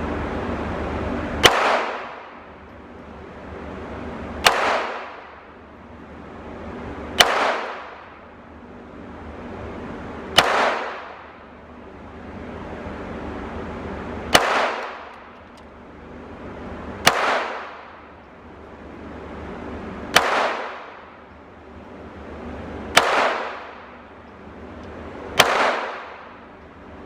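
Pistol fired nine times at a slow, steady pace, one shot about every three seconds, each sharp crack followed by a short fading echo.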